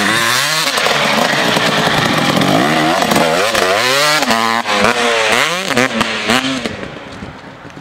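Two-stroke dirt bike engine revving hard under throttle. Its pitch climbs and drops again and again as the rider accelerates, shifts and backs off, and the sound trails away near the end as the bike moves off.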